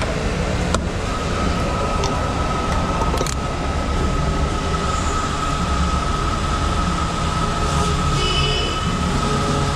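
Steady riding noise of a bike on a wet road in the rain: low rumble of tyres and wind, with a steady high whine that comes in about a second in.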